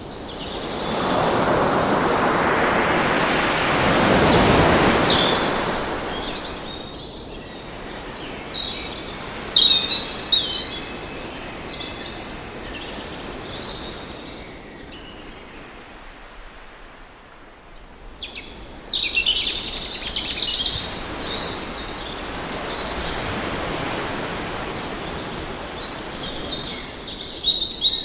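Birds chirping and trilling over a soft wash of water that swells and fades twice, like waves washing in.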